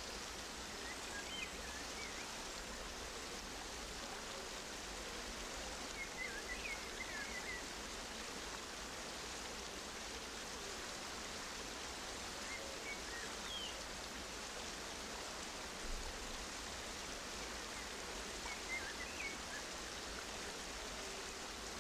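Steady, even rushing hiss of outdoor ambience, rain-like in character. Short high chirps come in a few times over it.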